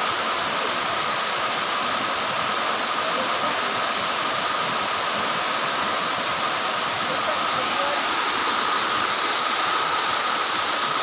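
Waterfall pouring over rock ledges into a pool: a steady rush of falling water.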